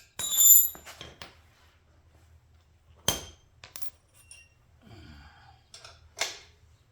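Metal hand tools, sockets and a wrench, clinking and clattering as they are picked up and handled. A loud ringing clank comes just after the start, another about three seconds in and a last one near the end, with lighter clicks between.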